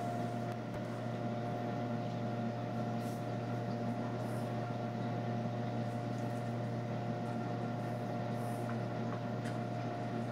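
Steady machine hum with a constant mid-pitched tone over a low drone, unchanging throughout, with a few faint soft brushing sounds now and then.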